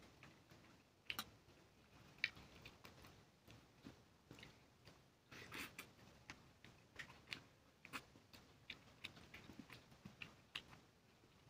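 Faint eating sounds: a person chewing and smacking while eating rice and fish curry by hand, fingers mixing the food on a steel plate. Many small irregular clicks, with a couple of louder ones about one and two seconds in.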